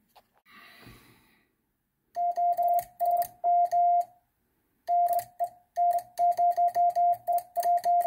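Morse code sent on a semi-automatic 'bug' key set to 50 words a minute: a steady mid-pitched sidetone keyed in rapid dots and dashes, with the key's contacts clicking at each mark. It starts about two seconds in, after a faint brief rustle, and pauses for a moment in the middle.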